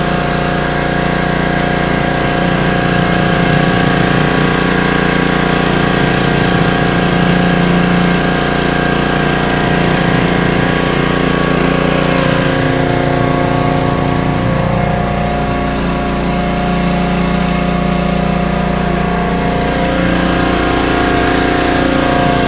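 Small 212cc gas engine of a pressure washer running steadily under load, with the high-pressure spray of a 16-inch stainless steel surface cleaner hissing on a concrete driveway.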